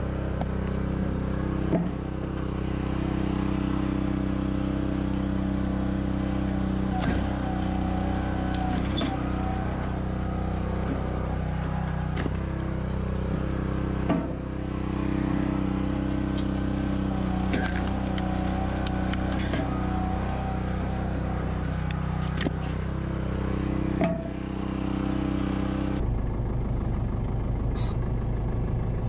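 Tractor-driven firewood processor running steadily, with sharp knocks every few seconds as logs are split on the wedge and pieces drop down the chute. Near the end it changes abruptly to the tractor's engine running steadily, heard from inside the cab.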